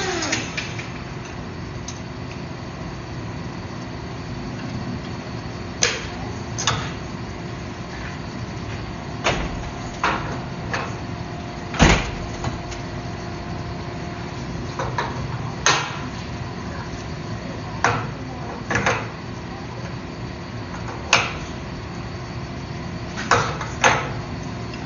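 A shop machine's motor winds down in the first half-second, falling in pitch. A steady hum follows, with scattered sharp knocks and clanks, the loudest about twelve seconds in.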